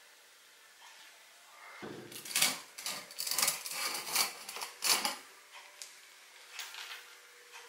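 Sheet-metal upper housing of a Land Rover Series oil bath air filter being worked loose and lifted off its oil cup: a run of metal scrapes and clanks starting about two seconds in and lasting about three seconds, then a few lighter knocks.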